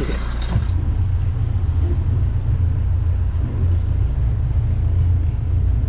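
Tractor engine running with a low, steady rumble as it tows a boat on its trailer.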